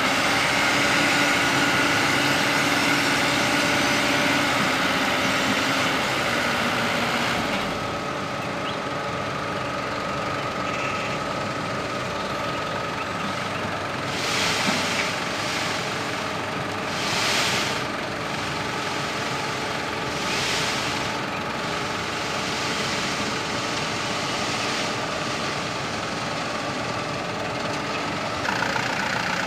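Diesel engine of a Mitsubishi Canter dump truck running while its hydraulic tipper bed is raised to dump soil. The engine is held at higher revs for about the first seven seconds, then drops back to a lower, steady run. Around halfway through come three short swells of rushing noise.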